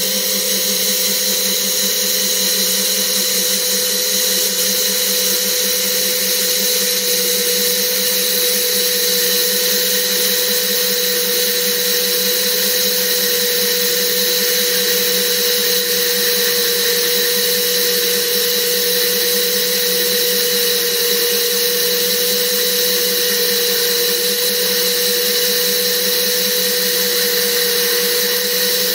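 DIY CNC lathe running steadily with a constant whine while sandpaper is held against the spinning 3D-printed metal part, adding a steady hiss of sanding.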